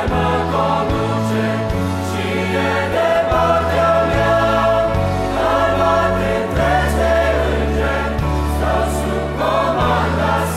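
A mixed youth choir of young men and women singing a Romanian Christian hymn in harmony, over a sustained low instrumental accompaniment.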